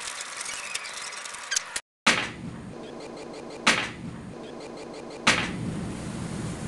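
Light crackling, like clear plastic being handled, then a moment of dead silence, then three sharp swishing hits about a second and a half apart.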